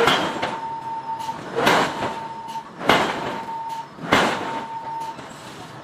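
Giant air hammer striking a red-hot iron billet: four heavy blows about a second and a quarter apart, each followed by a short steady tone.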